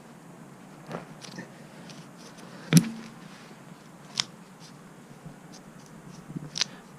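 Hand tools clicking and knocking during a tire plug repair: four sharp clicks, the loudest a little under three seconds in.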